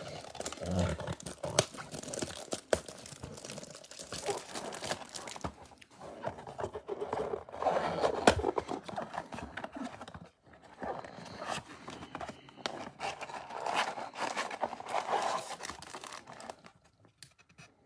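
Crinkling, tearing and rustling as a Bowman Platinum blaster box of baseball cards is opened and its wrapped packs are taken out, in irregular rustles with many small clicks.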